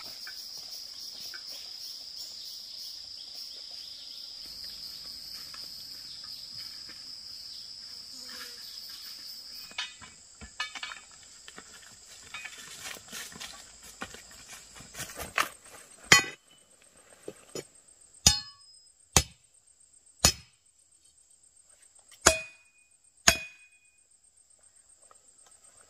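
Insects calling steadily for the first ten seconds, then footsteps on a leafy path. From about two thirds of the way in, six sharp strikes of a metal hoe biting into a dirt path, a second or two apart, the last two with a short metallic ring.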